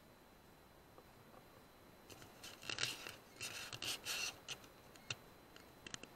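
Close scratching and rubbing in several bursts over about two and a half seconds, then a few short sharp clicks: handling noise on the rifle-mounted scope camera.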